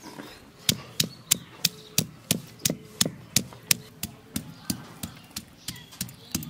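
Cylindrical stone pestle pounding food on a flat grinding stone. The strikes are sharp and steady, about three a second, and begin just under a second in.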